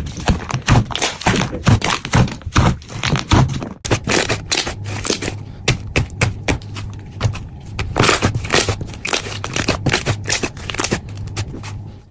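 Slime being squeezed and worked by hand for ASMR, giving dense, irregular clicking and crackling pops. The sound changes abruptly about four seconds in, to a second stretch of clicks over a low hum.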